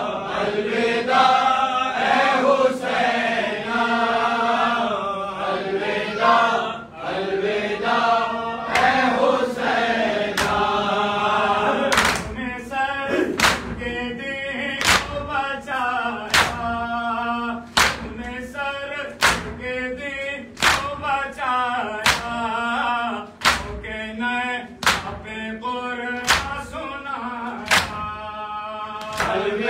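A group of men chanting a mourning noha in chorus. From about halfway through, rhythmic two-handed chest-beating (do dasti matam) joins in: sharp open-hand slaps on bare chests, mostly in pairs, repeating about every second and a half in time with the chant.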